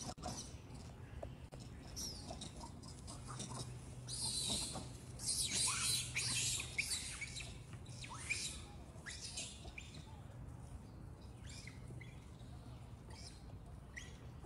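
Young macaques squealing while play-fighting: a loud run of shrill, high-pitched cries about four to seven seconds in, followed by a few short squeaks that drop sharply in pitch.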